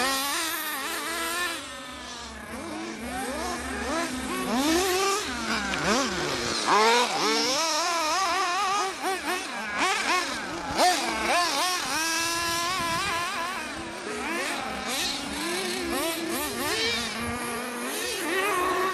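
Several 1/8-scale RC buggies' .21 two-stroke nitro glow engines racing, their high-pitched whine rising and falling over and over as each car accelerates and brakes around the track, several engines overlapping at once.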